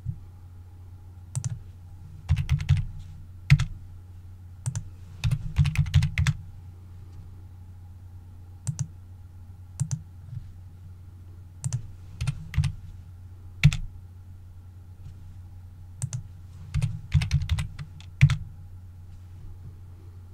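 Computer keyboard keystrokes and mouse clicks, irregular single clicks and quick clusters of several, over a steady low hum.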